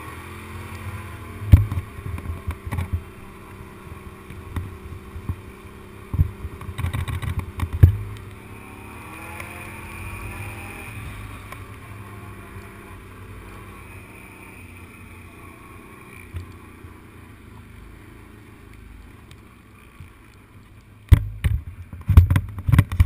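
Engine of a small off-road vehicle running as it crosses a rough stubble field, its pitch bending a little partway through. Loud thumps and rattles come as it jolts over the rough ground: a few in the first eight seconds and a burst of them near the end.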